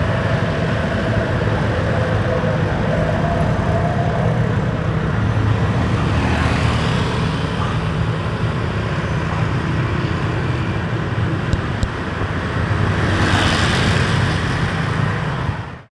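Road traffic: a steady low engine rumble, with vehicles swelling past about six seconds in and again near the end. The sound cuts off suddenly at the very end.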